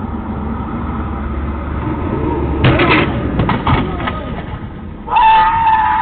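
Street traffic rumbling, with a brief clatter of knocks a little before the middle and a long high-pitched tone near the end that drops in pitch as it stops.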